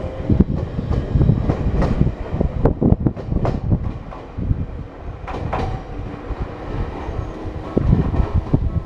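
Ueda Electric Railway Bessho Line electric train passing close by, its wheels clattering irregularly over rail joints above a steady low rumble.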